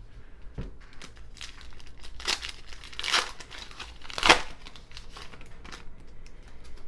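Wrapper of a baseball card pack crinkling and tearing open, a run of short rustles with two louder rips, about three seconds in and, loudest, a little after four seconds.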